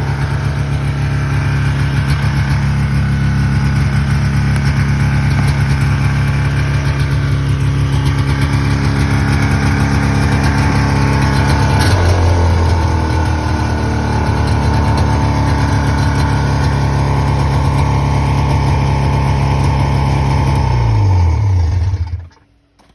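1981 SS 440 snowmobile's two-stroke engine idling steadily. Its note shifts briefly about halfway through, then sinks and stops as the engine is switched off at the very end.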